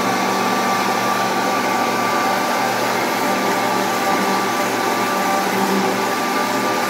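Mondial Turbo countertop blender running steadily, mixing a thin liquid batter: an even motor whine with a constant high tone over a rushing hiss.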